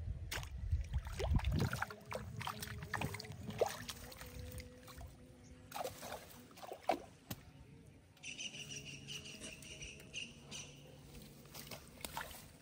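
Rustling, splashing and handling noise at a weedy pond edge as the fish is dealt with by hand, opening with a low rumble for about two seconds. A steady high-pitched call sounds for about two seconds past the middle.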